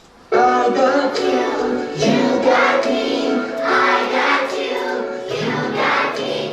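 A song with children singing starts suddenly about a third of a second in and carries on at a steady loud level.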